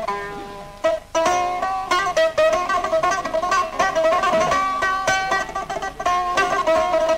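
A plucked or struck string instrument plays a quick melodic passage of ringing notes in maqam Saba, with a short fading pause about a second in before the phrase resumes.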